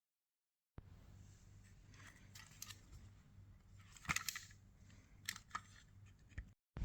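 Faint handling noises: a few sharp clicks and short scrapes over a low steady hum, the loudest click about four seconds in.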